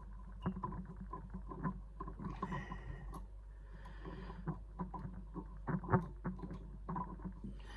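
A steel lock pick clicking and scraping in the slot of a tiny screw on a Chubb lever lock's case as the screw is worked loose: many light metal taps, with two longer scratchy scrapes about two and a half and four seconds in.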